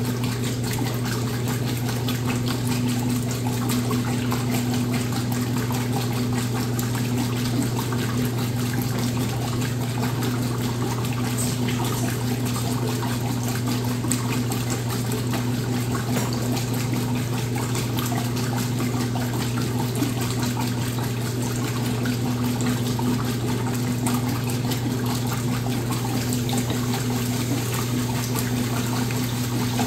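Washing machine running with water rushing through it over a steady electric motor hum.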